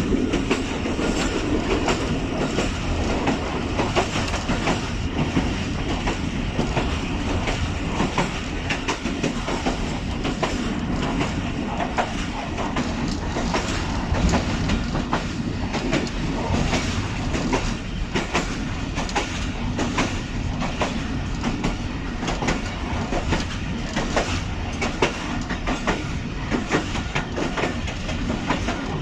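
Passenger train coaches running along the track: a steady rumble with frequent clicks of the wheels over the rail joints.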